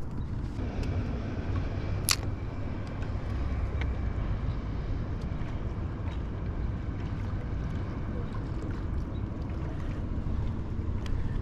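Low, steady rumble of wind and choppy water around a small fishing boat, with one sharp click about two seconds in.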